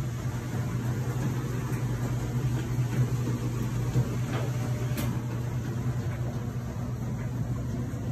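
Bathroom ceiling exhaust fan running with a steady low hum. A couple of faint clicks come about halfway through.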